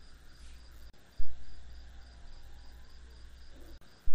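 A cricket chirping in short, evenly spaced pulses, a little over two a second. Two sudden dull low thumps stand out, one about a second in and one at the end.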